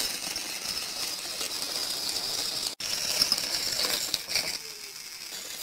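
Battery-powered plastic toy train (Thomas the Tank Engine) with its motor whirring, along with small plastic clicks and rattles against the plastic track after it tips over.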